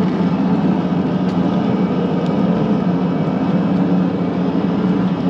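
Jet boat's 1UZ-FE V8 engine running steadily at low speed, a constant loud drone with no change in revs.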